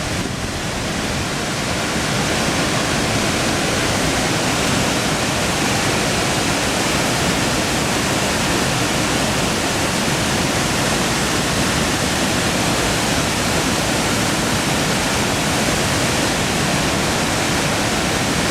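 Waterfall rushing: a steady, loud, even wash of falling water that swells slightly about two seconds in.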